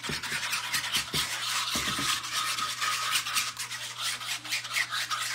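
Eggs being beaten with a small stainless steel whisk in a shallow tray: a quick, unbroken run of scraping and clicking strokes against the tray bottom.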